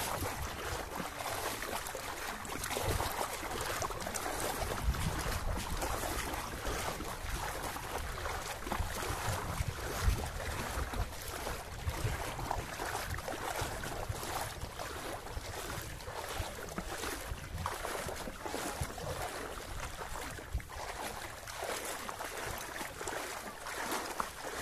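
Wind rumbling and buffeting on the microphone over a steady wash of water sloshing and splashing, while moving slowly through floodwater.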